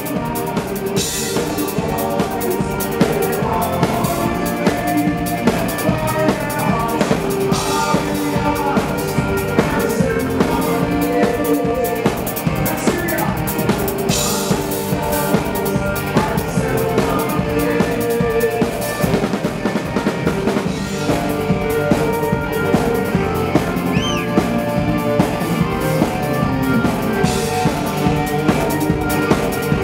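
Live rock band playing, amplified through a PA: a full drum kit keeps a steady beat with kick drum, snare and cymbals under bass, electric guitar and keyboards.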